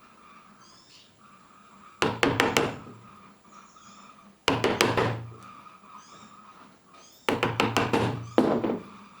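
Bursts of quick, sharp knocks on wood, a few strokes at a time: hand-tool striking on the pine workpiece during the dovetail work. There are three clusters, about two and a half seconds apart, and a short extra run near the end.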